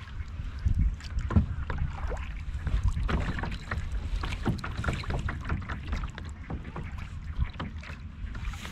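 Water splashing and lapping irregularly against a plastic kayak's hull on open water, over a steady low rumble of wind on the microphone.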